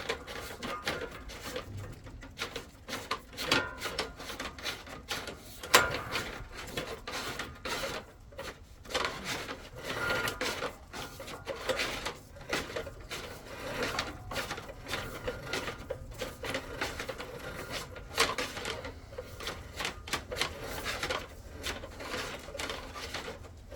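Drain inspection camera's push-rod being fed further along a sewer pipe: irregular clicking and rattling.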